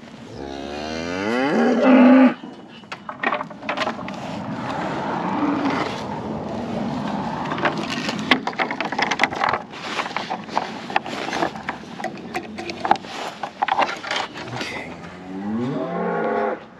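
Cows mooing: one long moo rising in pitch just after the start, the loudest sound, and another moo beginning near the end. In between there is a steady jumble of clicks and rustling.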